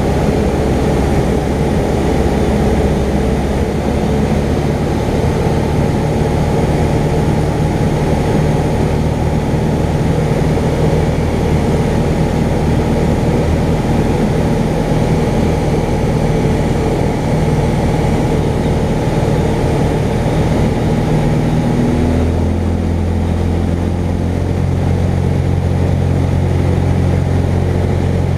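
Jabiru light aircraft's four-cylinder engine and propeller droning steadily at reduced power on approach, heard from inside the cockpit. About three-quarters of the way through, the engine note drops to a lower, steady idle-like tone as the plane lands and rolls along the runway.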